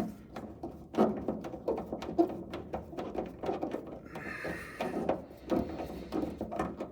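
Irregular clicks, knocks and scraping of hand work on a car's front spoiler as nuts are fitted onto studs, with a short rasping rub about four seconds in.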